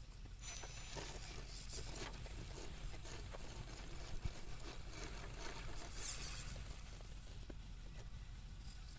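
Axial SCX10 III rock crawler creeping over rocks on low throttle: faint scrapes and small clicks of its tyres and chassis on the rock, one sharper click about four seconds in, with a faint steady high-pitched whine.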